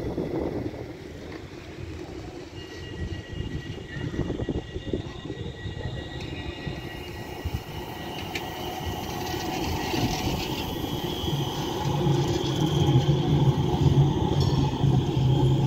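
Tram on street track, its running noise growing louder as it draws closer, with a high steady whine over the rumble of the wheels.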